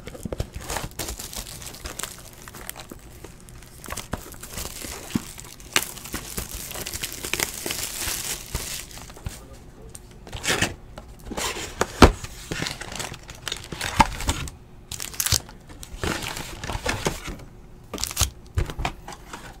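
Plastic wrap on a sealed box of trading-card packs crinkling and tearing as the box is unwrapped and opened, then cardboard and foil packs knocking and rustling as they are handled. The crinkling is heaviest in the middle; scattered sharp knocks follow, the loudest about twelve seconds in.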